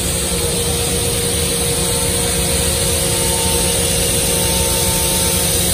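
Steady hum and rumble of running heavy machine-shop machinery, with a few steady tones over it and no change in level.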